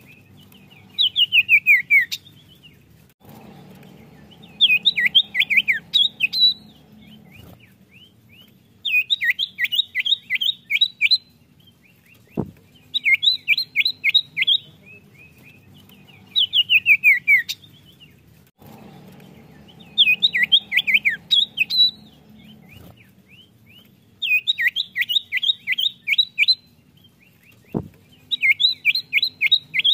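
Common iora (cipoh) singing in about eight bursts of rapid, high, falling notes, each burst a second or two long and a few seconds apart. A sharp click sounds twice.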